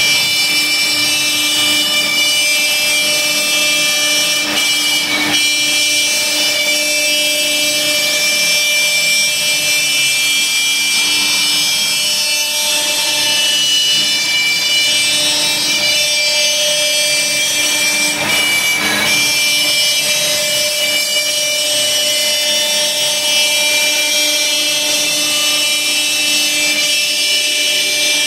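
Laguna Swift CNC router's spindle running with a steady high whine while its bit cuts lettering into half-inch plywood, over the even rasp of the cut.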